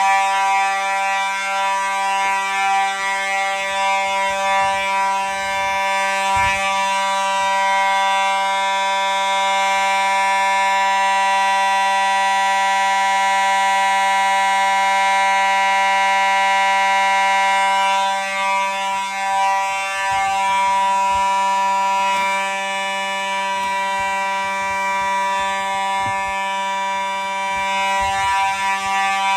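Fire alarm sounding one steady, continuous buzzing tone.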